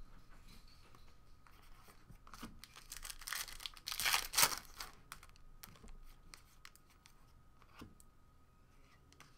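A Panini Stars and Stripes trading-card pack wrapper being torn open, with tearing and crinkling loudest about four seconds in and a few light clicks as the cards are handled.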